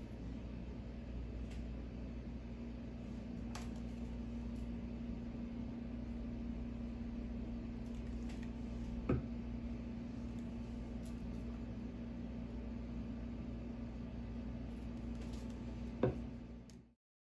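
Steady low machine hum with a faint steady tone under it, broken by a sharp click about nine seconds in and a louder one about sixteen seconds in; it cuts off suddenly just before the end.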